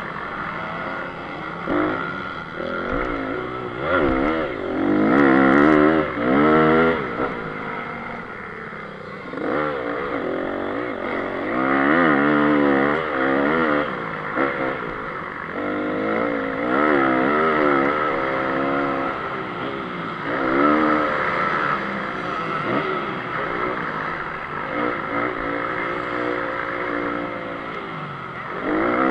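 A 2014 Honda CRF 250 motocross bike's single-cylinder four-stroke engine, heard close up from on the bike. It revs hard and eases off over and over, its pitch rising and falling every second or two as the throttle is opened and closed around the dirt track.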